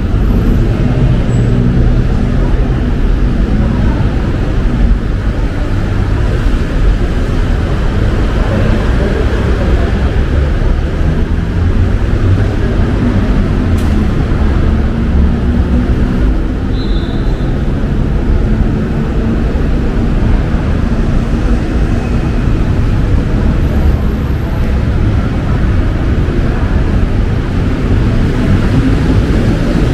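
Busy city road traffic: a steady, loud rumble of engines and tyres from passing cars and buses.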